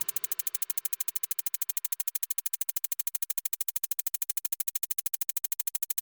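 Rapid, even electronic pulsing, about a dozen short clicks a second at a steady level, like a synthesizer buzz.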